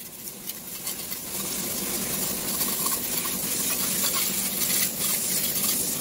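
Steel scraper scraping flaking paint and loose plaster off a damaged wall: a continuous scratchy rasping made of many small strokes, a little louder after the first second or so.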